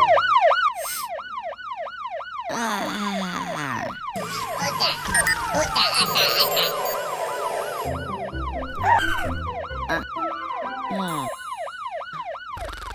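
Fire truck siren sounding in a fast warble of rising and falling wails, about three a second. It stops and restarts a few times, with other cartoon sound effects in the gaps.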